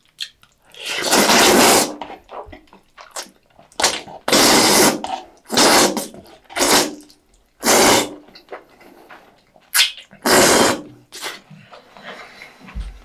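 A person slurping jjajangmyeon (noodles in black-bean sauce) through the lips in about six loud, airy slurps, the longest near the start, with soft wet chewing clicks between them.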